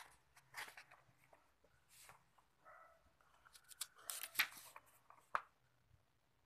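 Sheet of paper bearing a hand-painted miniature, rustling and crackling in short bursts as it is handled and turned over. The handling is densest about four seconds in, with a sharp click a little after five seconds.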